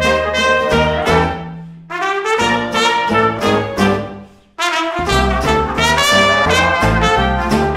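Traditional jazz band, with the trumpet, trombone and clarinet playing the intro phrases together over double bass and banjo. The phrases break off briefly twice, about two and four and a half seconds in, before the whole band comes back in fully.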